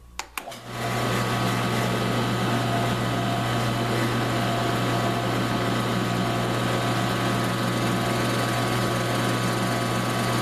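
Drill press switched on with a click, its motor spinning up within the first second and then running steadily, while a half-inch twist bit in a newly fitted Jacobs chuck bores into a block of wood.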